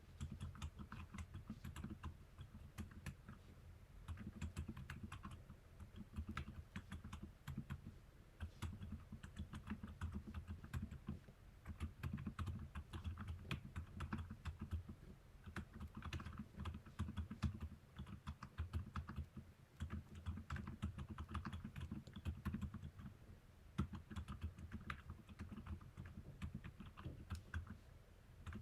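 Continuous typing on a Keychron K2 v2 mechanical keyboard with lubed Outemu Silent Cream Yellow switches and PBT SA keycaps. The keystrokes come as soft, muted clacks with a deep thud.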